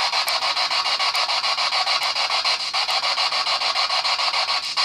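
Spirit box sweeping through radio stations: a steady hiss of radio static chopped into rapid pulses, many a second.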